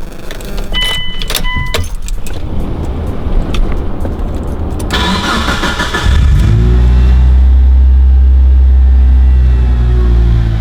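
The Mitsubishi Lancer Evolution V's turbocharged 4G63 four-cylinder is cranked on its first start after a cold air intake install. It catches about six seconds in and settles into a loud, steady high idle. A short beep sounds about a second in, before it fires.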